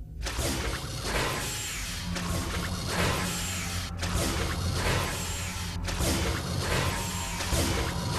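Dramatic cartoon score mixed with mechanical sci-fi machine effects, as a cloning device fires its beam. It starts suddenly and pulses about once a second over a heavy low rumble.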